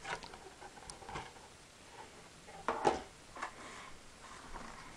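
Plastic packaging and a hard clear plastic iPod Touch case being handled as the case is pulled out of its package: scattered small clicks and crinkles, with a louder clack a little under three seconds in.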